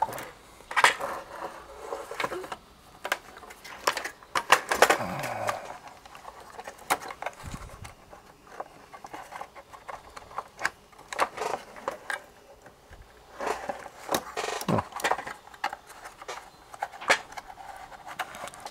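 Irregular clicks, knocks and scrapes of a radio's plastic case and metal-framed chassis being handled as the circuit board is worked out of the case.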